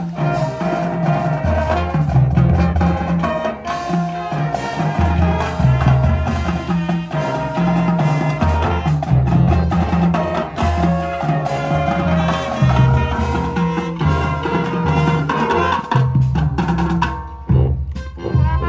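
Marching band playing: brass over a drumline, with a heavy bass-drum pulse. About a second before the end the sustained playing breaks off into a few short, separate hits.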